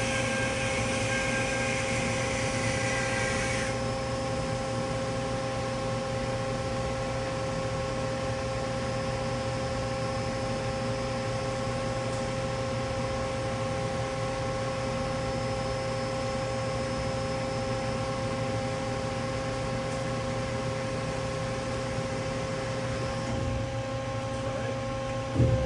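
HYD-MECH V-18 Series II vertical band saw running steadily, a constant machine hum with several steady tones. A higher whine over the first few seconds cuts off suddenly about four seconds in.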